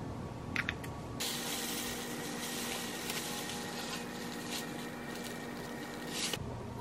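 A couple of sharp clicks of an eggshell cracking against a glass bowl, then a steady hiss for about five seconds that starts and stops abruptly.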